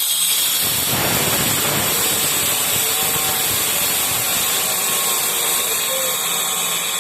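Power saw cutting a slab of white G7 stone: a steady high whine with a harsh grinding rasp that grows heavier about half a second in as the blade bites into the stone.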